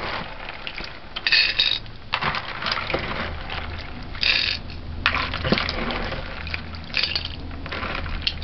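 Water splashing and sloshing as hands wash dried kidney beans, moving them between a metal strainer and a bowl of water, with short splashes about a second in, around four seconds in and near seven seconds.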